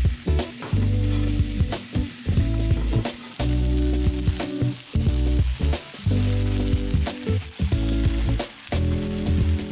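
Sauce-coated chicken pieces sizzling in a non-stick frying pan as they are stirred and tossed with a spatula, with scattered clicks of the spatula against the pan. Background music with a steady bass line plays throughout.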